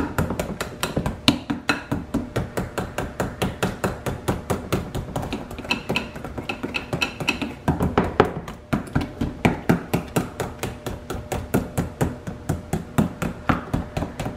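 Wire potato masher knocking rhythmically against the bottom of a glass mixing bowl, about four knocks a second, as it mashes chunks of butter into a wet banana-and-egg mixture.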